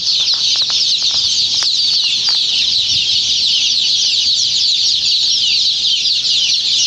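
A large flock of hatchery chicks peeping all at once: a dense, unbroken chorus of short, high-pitched cheeps that each slide downward in pitch.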